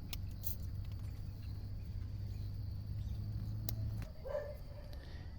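Quiet outdoor pond-side ambience: a steady low hum that stops about four seconds in, a faint insect drone, a few light clicks, and a short animal call near the end.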